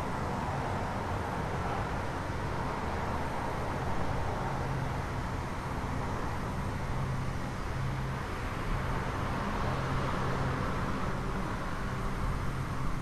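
Steady low rumble and hiss of background noise.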